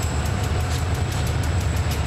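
Illinois Central EMD SD40 diesel-electric locomotives running, a steady low engine rumble.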